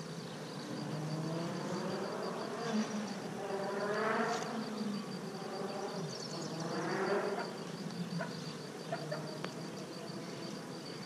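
Italian honey bees buzzing around an open hive, with single bees flying close by about four seconds in and again near seven seconds, their buzz rising and falling in pitch as they pass.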